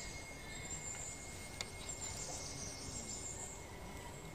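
Insects chirring outdoors in a high, wavering band that swells and fades, over a steady thin high tone and a low background rumble; a single sharp click about a second and a half in.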